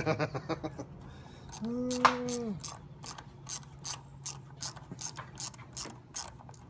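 Ratchet wrench clicking, about three evenly spaced clicks a second through the second half. About two seconds in there is a short steady tone.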